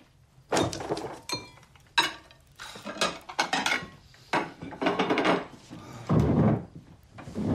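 Dishes and cutlery clinking and clattering: a run of separate knocks and clinks, a few with a brief ring.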